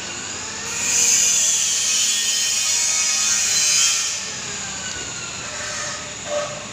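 A motor running loud for about three seconds, its pitch sliding, then fading away; a short knock near the end.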